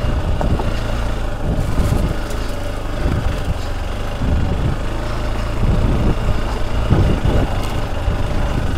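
Hero XPulse 200 4V's single-cylinder engine running at low revs with uneven, surging throttle.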